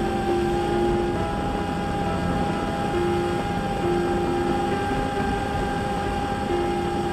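Bixler 3 RC plane's electric pusher motor and propeller running steadily, a constant whine over rushing air, heard from a camera on board the plane in inverted flight.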